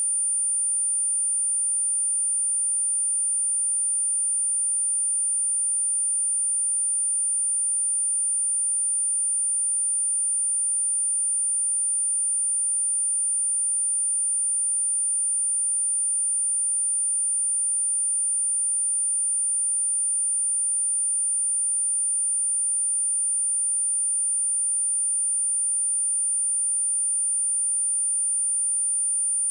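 A steady, unbroken 9241 Hz sine-wave test tone, a single high-pitched whistle-like note at constant loudness.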